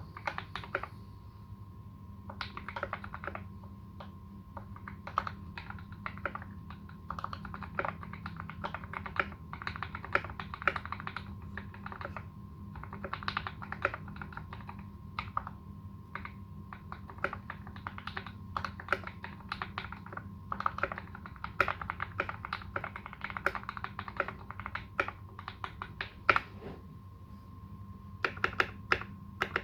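Typing on a Canoe Gen2 custom mechanical keyboard with fully modded Alpaca v2 linear switches, GMK Dolch keycaps and tuned Cherry screw-in stabilizers. Keystrokes come in quick runs broken by short pauses.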